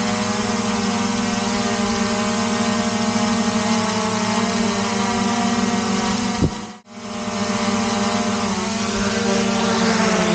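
DJI Mavic Air 2 quadcopter hovering on Master Airscrew stealth propellers: a steady, loud multi-tone buzz of four motors and blades. There is a brief click and a short dropout about two-thirds through. At the very end the pitch falls as the motors spin down after landing.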